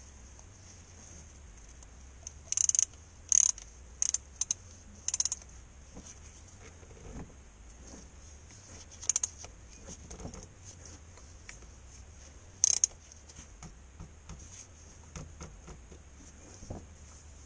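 Hand ratchet clicking in several short runs of quick clicks, with a steady low hum underneath.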